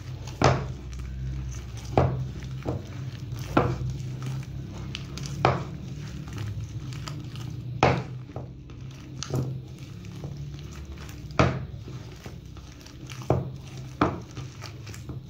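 Boiled potatoes and cheese being mashed by hand in a bowl, with irregular sharp knocks of the hand against the bowl every second or two over a steady low hum.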